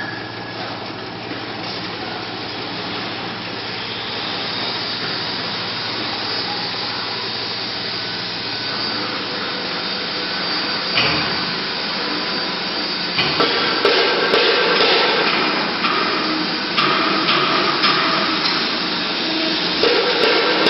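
Metal-cutting band saw running, its motor giving a steady hum. About thirteen seconds in the sound gets louder and rougher, with ringing tones and rattles, as the blade cuts metal.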